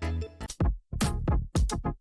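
Electronic background music with a drum-machine beat: short punchy hits that sweep quickly down in pitch, with brief gaps between them.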